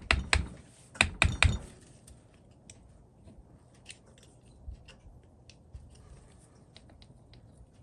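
A quick run of sharp clicks and knocks in the first second and a half, then sparse faint ticks: small metal screws and parts being handled and set down on a workbench.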